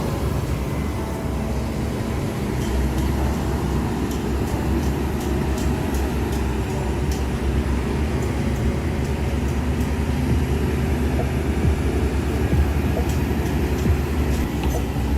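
Heavy diesel earthmoving machinery running steadily with a deep, continuous rumble, with faint light clicks and clanks scattered throughout.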